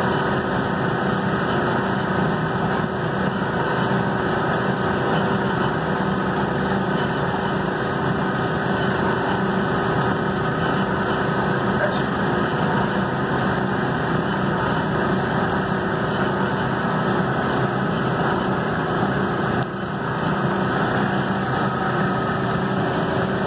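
Laser engraving machine running as it etches a picture into granite: a steady, unchanging whir and hum.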